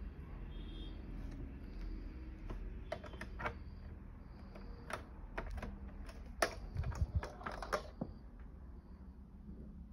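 Light plastic clicks and taps from a rope light's power connector being handled and pushed back onto the light after a faulty connection. The clicks come in an uneven run through the middle, thickest just before the end of it, over a low steady hum.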